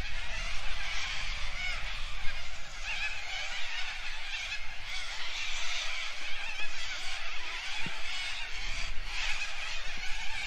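Steady outdoor hiss with a busy chatter of distant waterbird calls, and one soft low bump about eight seconds in.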